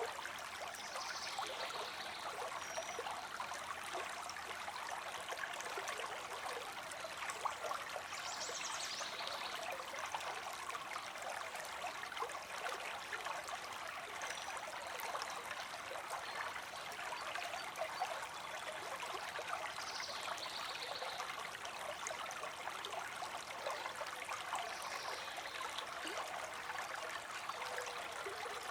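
Creek water streaming steadily with a continuous trickling rush. Four faint, short high chirps are scattered through it.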